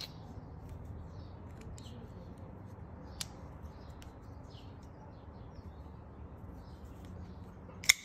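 A sharp metallic click near the end as the CJRB Feldspar folding knife's blade is flipped open and snaps into place, with a fainter click about three seconds earlier, over a steady low background hum.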